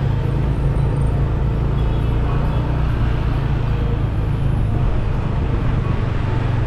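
Car driving slowly in town traffic: a steady low engine and road rumble.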